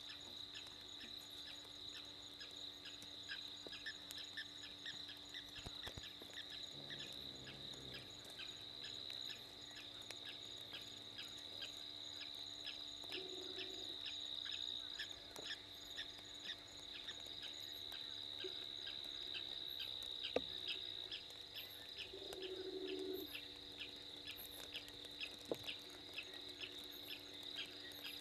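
Night insect chorus of crickets: a steady high trill with even pulses about three times a second. Two short low calls stand out, one about halfway through and one near the end.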